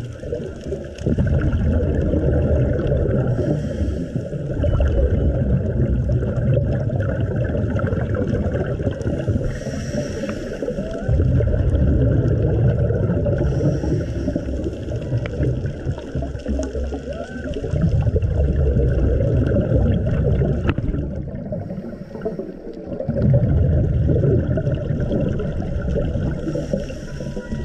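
Underwater scuba breathing heard on the camera's own microphone: a short hiss from the regulator on each breath in, then a long rumble and gurgle of exhaled bubbles, repeating several times.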